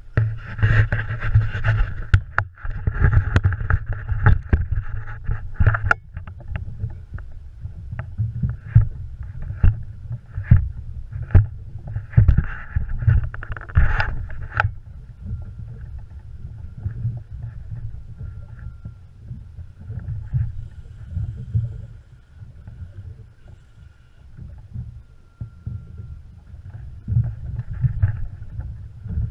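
Wind buffeting the microphone and water moving around a small boat make a steady low rumble. Over roughly the first half, buzzing and sharp clicks come from the spinning reel as a hooked shark is played on a bent rod. After that it settles to the quieter rumble.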